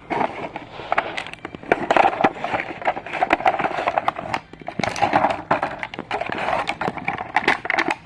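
Plastic toy packaging crinkling and rustling as it is handled and opened, with many sharp irregular crackles.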